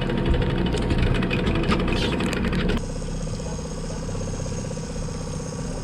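Boat engine idling steadily. For the first few seconds it is mixed with a rush of wind or water and sharp clatters and knocks, then the sound changes abruptly to a cleaner, steady engine hum.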